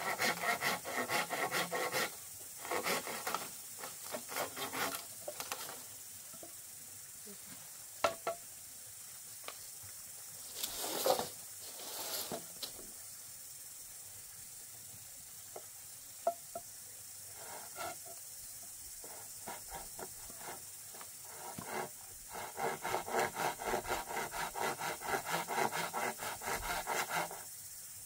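Hand saw cutting through a green bamboo culm, in quick back-and-forth scraping strokes. The sawing comes in bursts at the start and again near the end, with a quieter stretch between that holds a few scattered knocks.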